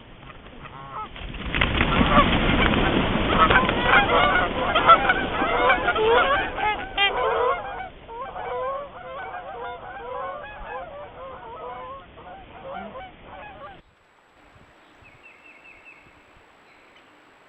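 A flock of geese honking, many calls overlapping, loudest in the first few seconds over a rushing noise, then thinning out. The calling cuts off suddenly about fourteen seconds in, leaving a faint background with a few short high bird calls.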